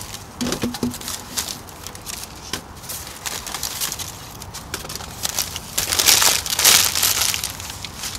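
Plastic bags and plastic film crinkling and crackling as hands grab and crumple them, an irregular rustle that is loudest about six to seven seconds in.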